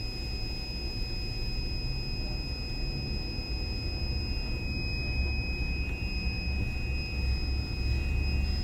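Steady low machine rumble with a faint, constant high-pitched whine over it.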